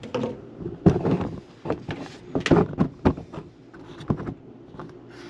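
Irregular knocks and clatter of white PVC sink drain parts and their slip nuts being handled and fitted together under a sink cabinet, with several sharp taps spaced unevenly.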